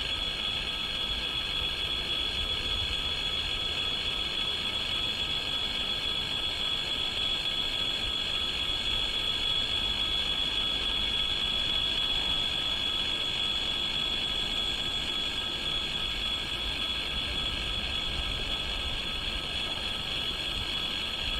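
Train running on the rails: a steady rolling rumble with a continuous high whine, unchanging throughout.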